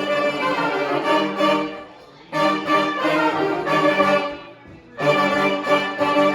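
Street brass band playing a horn-section tune live, the full ensemble sounding loud sustained chords in three phrases of about two seconds each, with short breaks between them.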